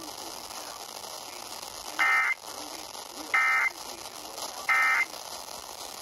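Emergency Alert System end-of-message data tones from a Sangean HD Radio's speaker: three short, buzzy digital bursts a little over a second apart, over a low hiss. They mark the end of the alert.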